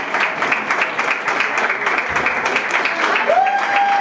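Audience applauding, a dense patter of hand claps. A little over three seconds in, a long, steady held note rises above the clapping from the crowd.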